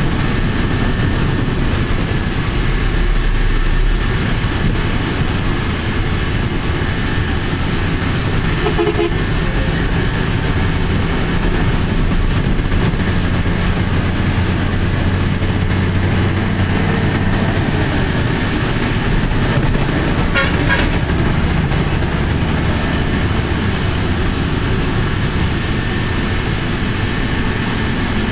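Steady engine and road rumble of a vehicle moving through traffic behind heavy container trucks. A brief vehicle horn toot sounds about twenty seconds in.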